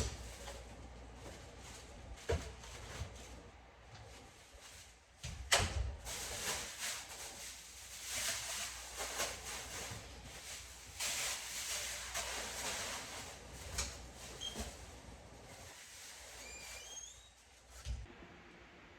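Handling noise: two sharp knocks, then a long spell of crinkly rustling, with a few faint squeaks near the end.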